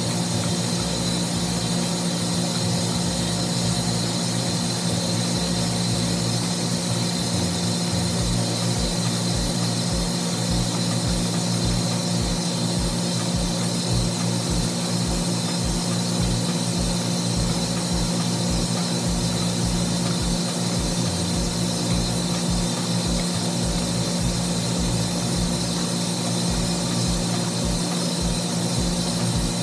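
Steady mechanical hum of machinery in a building's hot-water plant room, with a constant low drone and a thin high whine.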